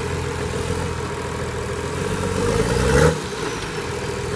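Engine of an off-road 4x4 running under load as it crawls over rough ground. The revs rise from about two seconds in and drop off suddenly at about three seconds, with a sharp knock at that moment.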